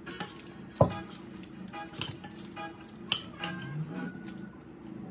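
Tableware clinking and knocking during a meal, a few sharp clicks with the loudest about a second in, over faint background music.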